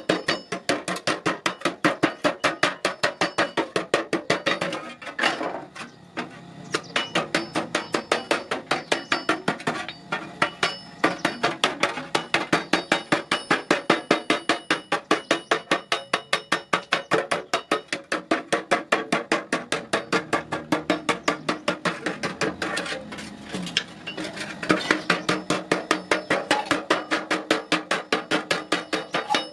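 Blacksmith's hammer striking metal in a fast, steady rhythm of about five blows a second, each blow ringing, with a few short pauses.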